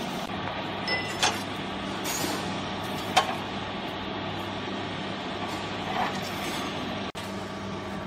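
A steady machine hum with a hiss over it, and three short sharp knocks and rustles as baling twine is threaded around a compressed cardboard bale in a small vertical baler.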